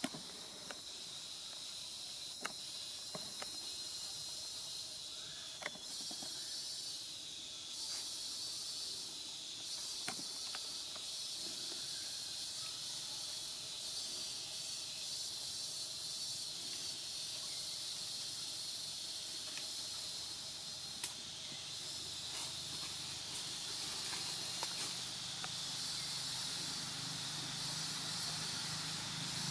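Steady high-pitched drone of forest insects, with a few faint scattered clicks. A low hum builds in after about twenty seconds.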